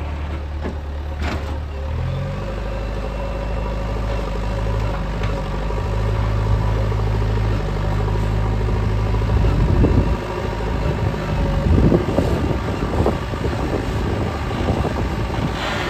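Diesel engine of a JCB 3DX backhoe loader running under work, its pitch rising about two seconds in as it revs up. Several rough clattering knocks come around the middle to later part, over the engine.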